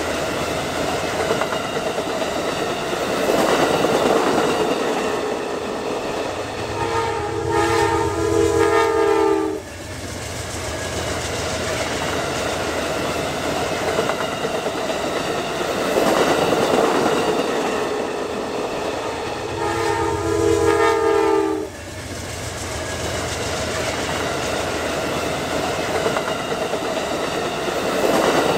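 Amtrak Silver Star passenger cars rolling past on the rails, a steady rumble with wheel clatter. A train horn sounds for about two and a half seconds, about seven seconds in and again about twenty seconds in, and each time it cuts off suddenly.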